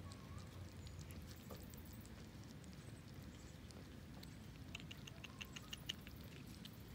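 Kittens eating from a plate of shredded food: faint, quick smacking and chewing clicks, with a run of them about five seconds in.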